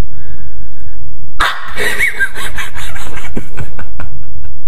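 A man laughing hard, a loud high-pitched squealing laugh that breaks out about a second and a half in, followed by sharp gasping breaths.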